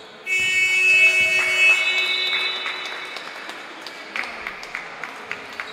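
A loud buzzer tone, many steady pitches sounding together, starting sharply just after the start and fading out over about two and a half seconds: the gym's period-ending signal. After it come scattered short taps and squeaks from the court.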